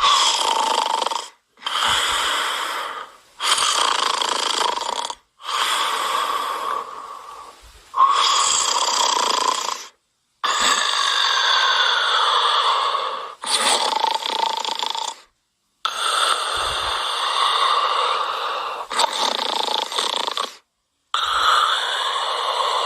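Snoring sound effect: about ten loud snore breaths in a row, each one to three seconds long, with short silent gaps between them.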